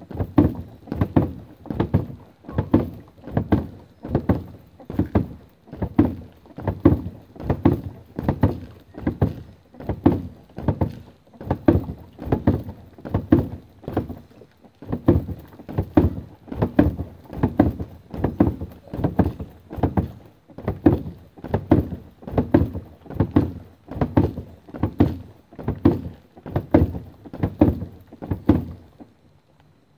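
Repeated dull thuds, about one a second and sometimes in quick pairs, as a punch is thrown over and over with a kettlebell held in the fist; they stop shortly before the end.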